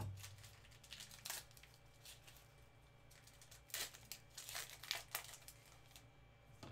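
Plastic wrapper of a Donruss baseball card pack being torn open and crinkled by gloved hands. It comes in several short, faint crackling bursts with quiet gaps between.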